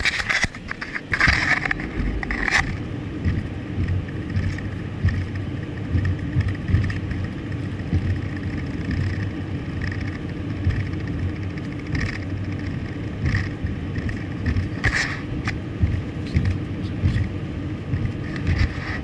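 A vehicle driving, heard with a steady low road and engine rumble, with a few sharp knocks or rattles in the first couple of seconds and again about fifteen seconds in.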